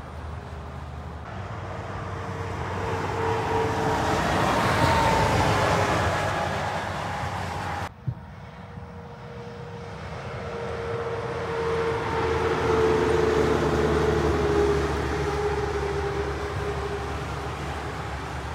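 Heavy trucks driving past, two in turn: each builds to a loud pass of engine and tyre noise and then fades, with a tone that falls in pitch as it goes by. The first pass is cut off abruptly about eight seconds in.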